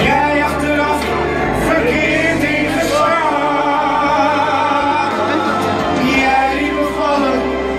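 A song with a singer holding long, wavering notes over a steady instrumental backing.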